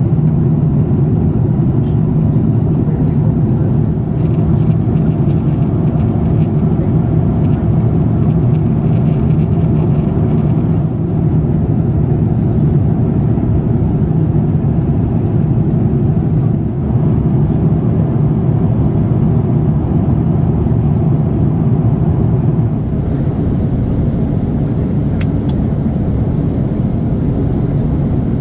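Steady low rumble of a four-engine Airbus A340-300 heard from inside the passenger cabin: engine and airflow noise.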